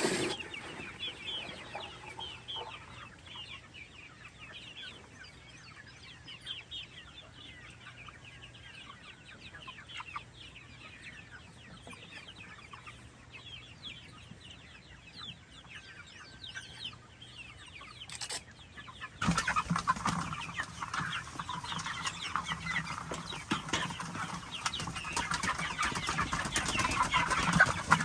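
A flock of chickens clucking and chattering, many short calls overlapping. About two-thirds of the way through, a louder steady noise with a low hum comes in and runs on under the clucking.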